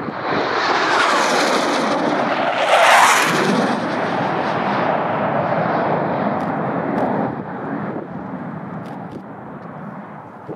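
Low-flying BAE Hawk jet trainer's Adour turbofan passing close by. The noise builds, is loudest about three seconds in with a falling Doppler sweep, then carries on as a rumble that fades away after about seven seconds.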